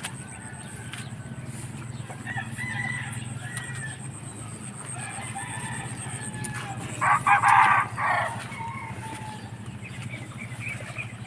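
A rooster crowing loudly about seven seconds in, a single crow broken into a few segments, with fainter calls from other birds earlier, over a steady low hum.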